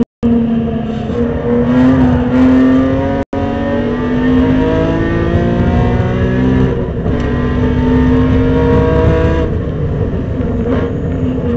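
Supercharged BMW E46 M3 straight-six engine at full throttle, its pitch climbing under acceleration, dropping sharply at an upshift about two-thirds through, climbing again and then easing off near the end.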